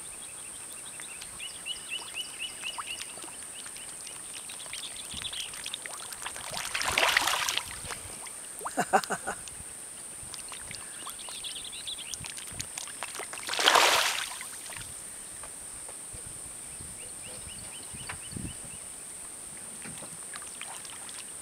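Water splashing as catfish feed at the surface of a pond, with two louder splashes about seven and fourteen seconds in. Faint repeated chirping runs between them.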